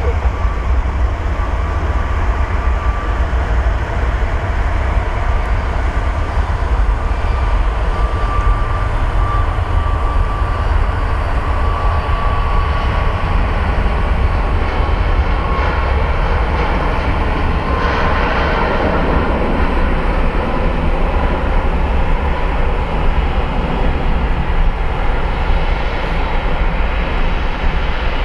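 Boeing 737 MAX 8 jet engines at takeoff thrust during the takeoff roll: a loud, steady jet roar over a deep rumble, with a faint high whine in the first half. The roar grows brighter about eighteen seconds in.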